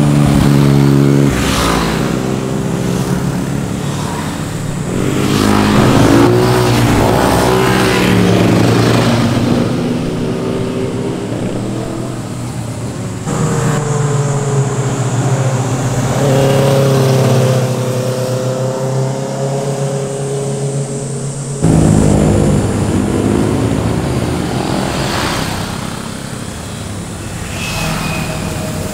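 Several motorcycles pass one after another through a tight bend, engines revving up and falling off as the riders roll the throttle and change gear, among them a Yamaha MT-09's three-cylinder engine. One bike holds a steady engine note for several seconds in the middle. The sound cuts abruptly twice, a little under halfway and about three-quarters through.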